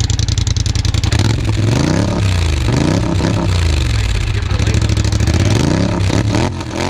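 2020 Polaris Scrambler XP 1000 S's parallel-twin engine running through a freshly installed RJWC dual crossflow exhaust. It idles with a fast, even pulse, then from about a second in is revved up and down repeatedly, and drops back near the end.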